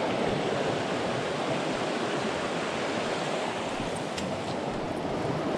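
Mountain creek rushing steadily over rocks and small rapids, an even wash of water noise.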